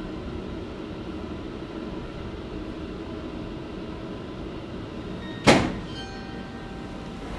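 A single sharp bang about five and a half seconds in, fading within half a second, over a steady background hum.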